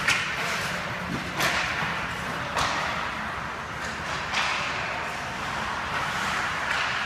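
Ice hockey play: skate blades scraping and hissing on the ice, with four or five sharp clacks of sticks and puck a second or so apart.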